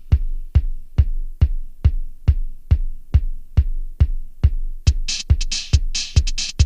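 Electronic background music with a steady drum-machine kick a little over two beats a second; a bright, hissing percussion layer joins about five seconds in.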